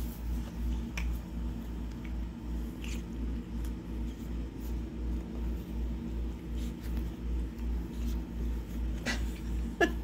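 Cat purring close to the microphone in a steady low pulsing, with a few soft clicks and rustles as it wrestles a catnip toy.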